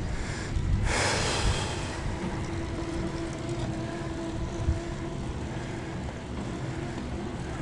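Wind rumbling over a GoPro's microphone while riding a bicycle, under a steady low hum. A brief rushing swell comes about a second in.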